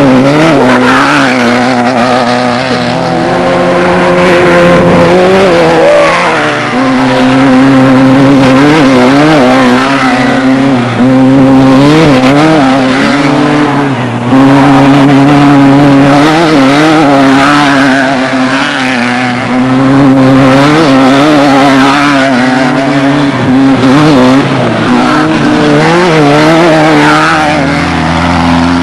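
Off-road race vehicle engine running hard at high revs, the pitch dipping and rising again and again as the throttle changes.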